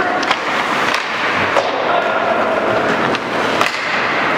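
Ice hockey play: skate blades scraping the ice and three sharp clacks of sticks and puck, over a steady din from the rink.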